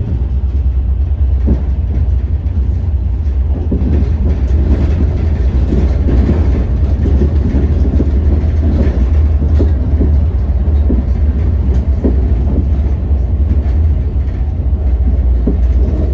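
Inside a passenger coach of a train running on the rails: a loud, steady low rumble of wheels and running gear, with scattered knocks as the wheels pass over rail joints.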